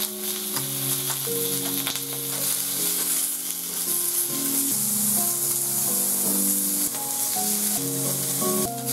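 Slices of meat sizzling on a hot tabletop grill plate, a steady crackling hiss. Under it, a soft background melody of held notes changes pitch every half second or so.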